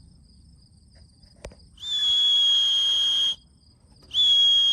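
Electronic pigeon racing clock beeping twice, a long steady high beep and then a shorter one, as returning homing pigeons are registered at the loft trap. Crickets chirp steadily in the background.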